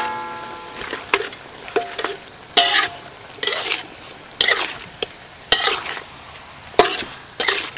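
Metal spatula scraping and turning duck pieces in a large metal wok, about one stroke a second, over a steady frying sizzle. The wok rings briefly after a strike at the start.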